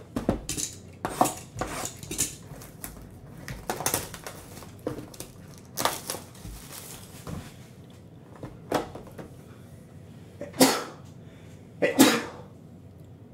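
Foil trading-card pack wrappers crinkling and tearing, then two sneezes near the end, about a second and a half apart.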